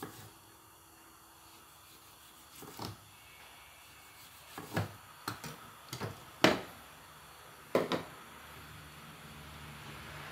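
Kitchen clatter: a series of short, sharp knocks of utensils and dishes, the loudest about six and a half seconds in. A steady hiss with a low hum builds slowly near the end.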